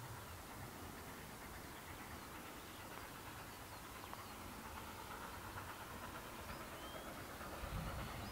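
Steam locomotive approaching in the distance, faint and slowly growing louder, with a brief low thump near the end.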